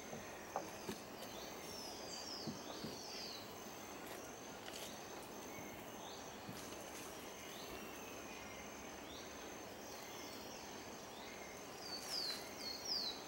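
Tropical rainforest ambience: a steady high insect drone under an even hiss of forest sound, with runs of short falling bird notes a couple of seconds in and again near the end.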